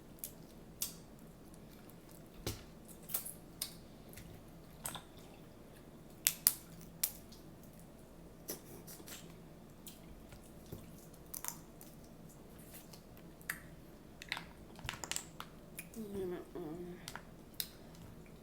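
Seafood shells being cracked and peeled by hand while eating a seafood boil: scattered sharp cracks and clicks, irregular, sometimes in quick pairs, with some chewing.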